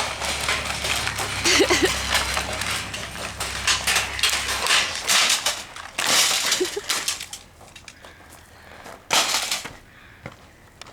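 The broken casing and parts of a smashed coffee maker crunching, cracking and clattering as it is broken up further and its insides pulled out. There is a dense run of crackles and knocks for about seven seconds, then it goes quieter, with one more loud crunch near the end.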